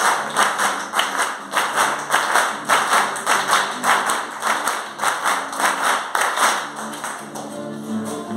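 Hand clapping in a steady chacarera beat over a strummed acoustic guitar, the instrumental introduction of a chacarera. The clapping dies away near the end while the guitar goes on.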